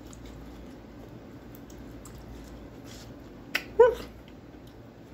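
A click, then a short, high-pitched yelp-like whine about three and a half seconds in, over faint low room noise.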